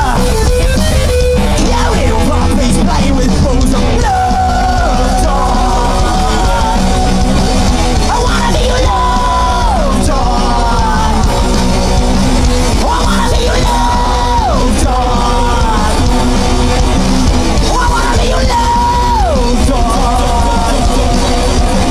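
Punk rock band playing live and loud, with electric guitars, drums and yelled singing. A phrase of long held high notes that slide down repeats about every five seconds.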